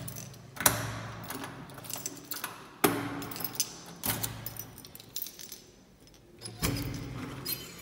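An old door lock worked with keys: metallic jangling and several sharp clicks and clunks as the lock turns, with the door handle creaking.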